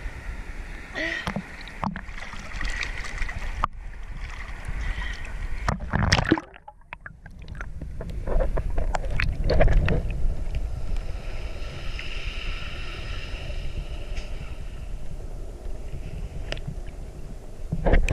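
Sea water sloshing and splashing around a camera held at the waterline. About six seconds in, the sound briefly drops away and goes muffled before the splashing returns.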